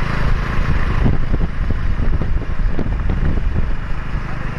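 Wind buffeting the microphone of a camera on a moving vehicle, over the steady running of the vehicle's engine.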